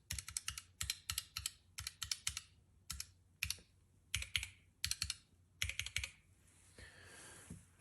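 Typing on a low-profile keyboard with Kailh Chocolate switches: irregular flurries of key clicks that stop about six seconds in, followed by a faint, soft hiss near the end.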